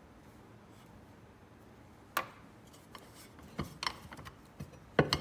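Metal parts of a snowmobile drive clutch being handled and set down: one sharp clink a little over two seconds in, then a few lighter knocks and taps.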